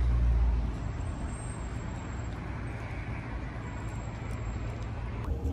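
Road traffic noise: a low rumble that fades within the first second, then a steady hiss of street traffic.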